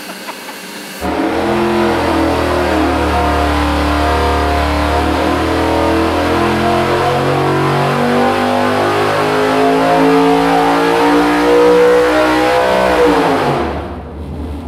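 GM 4.8-litre Gen IV LS V8 on an engine dyno making a full-throttle pull. About a second in it goes to full throttle and its pitch climbs steadily with revs. Near the end it lets off and the pitch falls as the engine winds down.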